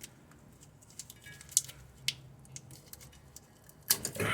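Scattered light clicks and taps, a few sharper than the rest, of hands and tools handling a wire at a car's wheel hub, over a faint steady low hum.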